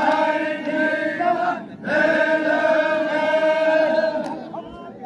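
Zikri chogan devotional chant, voices singing in unison in long held phrases. There is a short break about two seconds in, and the singing fades out after about four seconds.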